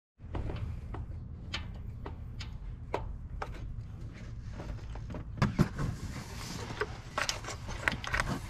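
Irregular metallic clicks and clinks of a ratchet and long socket extension being worked on a spark plug deep in the engine bay, coming faster near the end, over a steady low rumble.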